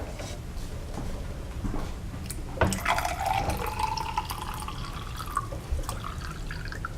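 Water running into the plastic body of an Angry Mama microwave cleaner, its note rising slowly as the container fills. A knock comes a little before the filling sound starts.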